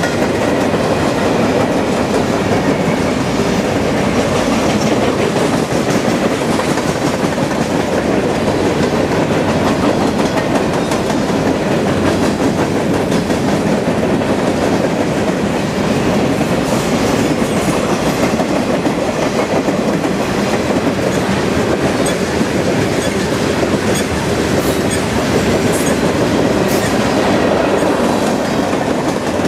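Freight train cars (covered hoppers and boxcars) rolling past close by, their steel wheels rumbling and clacking steadily on the rails.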